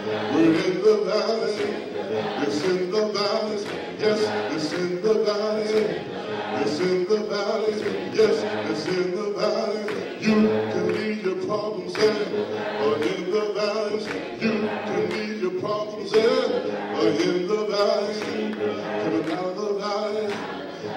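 A man singing an a cappella gospel song into a handheld microphone, amplified through PA speakers, with long held and bending notes.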